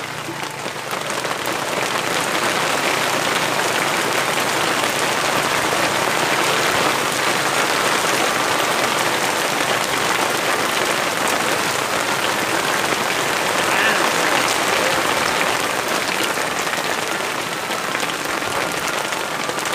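Heavy rain pouring onto the open water of a reservoir, a dense, steady hiss of drops that swells slightly about two seconds in.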